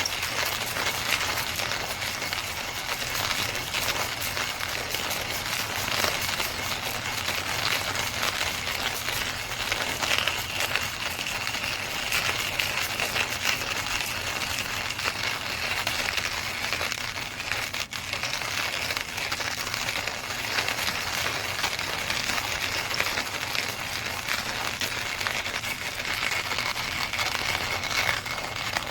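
KitchenAid KCG8433 burr coffee grinder grinding beans: a steady crackling crunch of dense fine clicks over a faint high whine.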